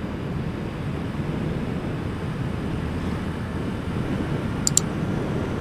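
Honda CB 250F Twister's single-cylinder engine running at a steady cruise, mixed with wind noise on the action-camera microphone. Two short, high ticks sound close together near the end.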